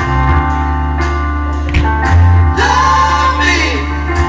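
Music: a song with singing over held bass notes.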